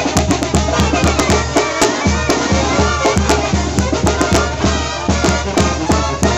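Mexican banda-style brass band playing, with clarinets and brass carrying the melody over a steady bass beat and bass drum.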